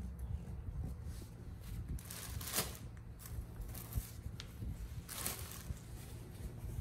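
Paper tissues rustling as they are handled, in two brief swishes, one about two seconds in and one about five seconds in, over a low steady hum.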